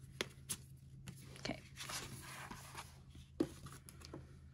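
Hands handling paper and cardboard album packaging, with a CD slid in its paper sleeve: soft rustling, a longer sliding rustle about two seconds in, and a few sharp clicks and taps.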